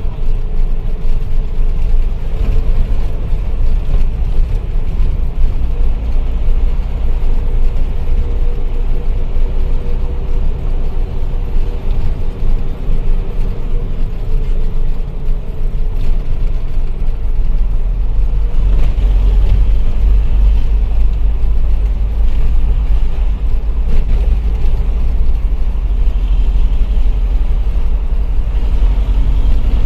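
Hino Ranger dump truck's diesel engine running while the truck drives, a continuous low rumble.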